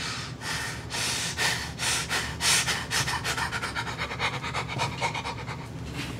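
A man breathing hard in loud breaths about twice a second, quickening into rapid panting from about three seconds in.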